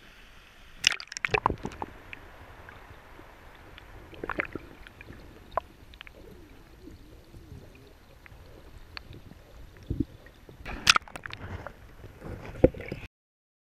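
Muffled sound from a camera held underwater in a river: water sloshing and gurgling, broken by sharp knocks and clicks from handling, loudest about a second in and again near eleven seconds. The sound cuts off suddenly near the end.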